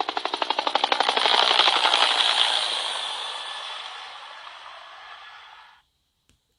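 A SoftBank 705NK (Nokia N73) sound-effect ringtone played through the phone's speaker: a fast, even run of clicks, about ten a second, that grows louder until about two seconds in, then fades away and stops about six seconds in.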